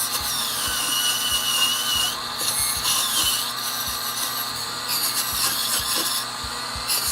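Small high-speed power tool sanding a carved wooden chess piece to blend in parting lines and remove raised wood fibres: a high whine that drops in pitch as it bears on the wood, breaking off briefly a couple of times.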